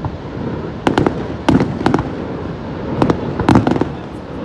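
Aerial fireworks shells bursting in the sky, about six sharp bangs at uneven intervals, some in quick pairs, over a steady background rush.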